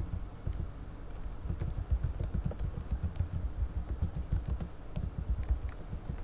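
Typing on a computer keyboard: a quick, irregular run of key clicks with dull thumps.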